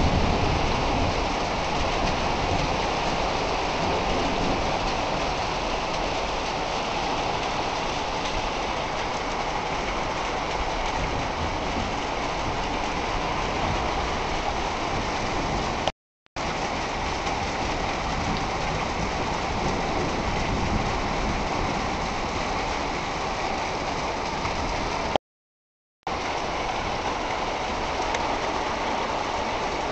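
Heavy summer downpour: a steady, even hiss of pouring rain. It cuts out completely twice, briefly about halfway through and for about a second later on.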